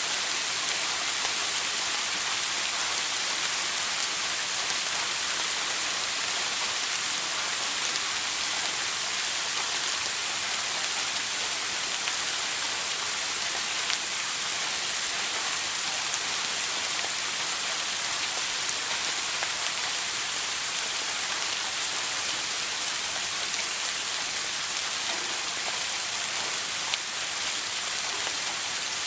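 Shower water spraying and pattering steadily, an even hiss with a few small splashes.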